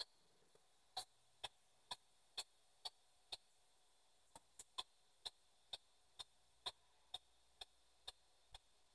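P-SB7 spirit box sweeping through radio stations with its output muted between steps: faint, evenly spaced clicks, about two a second.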